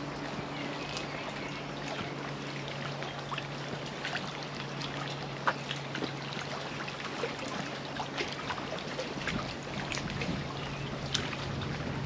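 Small lake waves lapping and trickling against the shore and jetty, with scattered little splashes and a steady low hum underneath.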